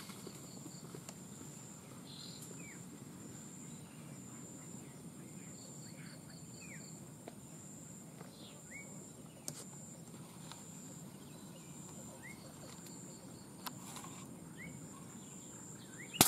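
Faint forest ambience: an insect's high, steady whine coming and going in short pulses, with short rising bird chirps every second or two. At the very end, a single sharp crack of an air-rifle shot.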